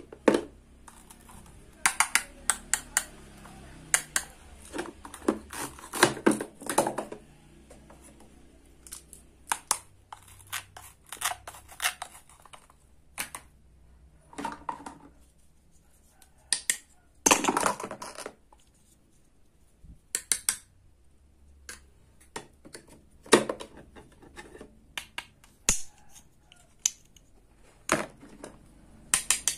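Toy play-food pieces clicking and clattering as hands pick them up and drop them into a toy bowl, in irregular sharp knocks with short pauses between.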